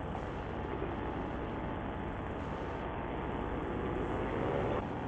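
Paramotor's two-stroke engine and propeller running steadily in cruising flight. The drone swells and rises slightly in pitch about four seconds in, then drops back.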